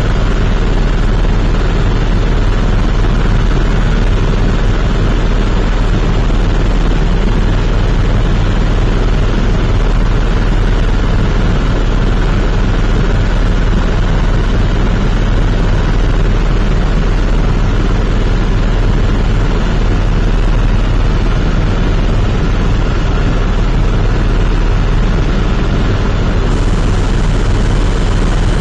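Helicopter in flight, its rotor and engine making a loud, steady drone with a low hum that does not change.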